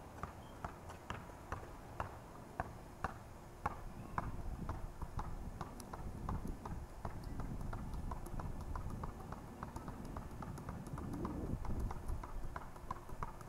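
Footsteps, about two sharp clicks a second, as a person walks on pavement, with a low rumble that builds up during the middle and later part.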